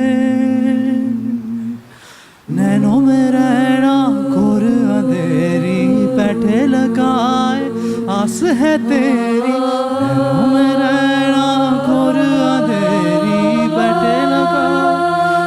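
A cappella vocal ensemble singing. A held chord fades out about two seconds in, there is a brief pause, and then the voices come back in together, low sustained notes under moving upper melodies.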